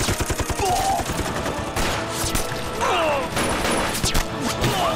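Battle gunfire from rifles and machine guns: a rapid burst of shots at the start, then scattered single shots.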